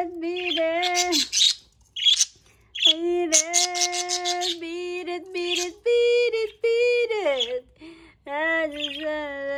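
Pet budgerigars chirping and chattering in short high bursts, over a voice holding long, steady sung notes.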